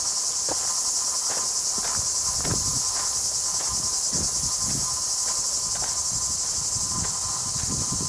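A loud, steady chorus of cicadas buzzing, with the soft thuds of footsteps on a trail about twice a second underneath.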